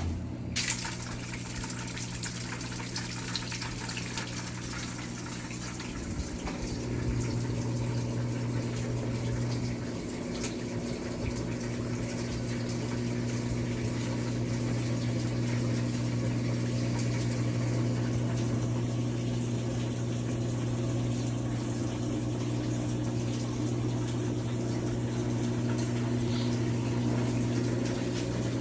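Maytag Centennial washing machine running with water rushing through it and a constant low hum. It starts suddenly and gets a little louder about six seconds in.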